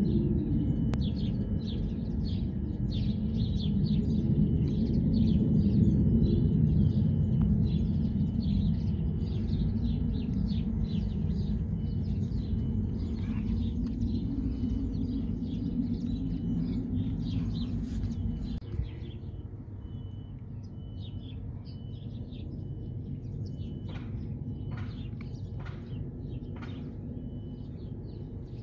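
Small birds chirping and twittering over a steady low rumble, which falls away suddenly about two-thirds of the way through.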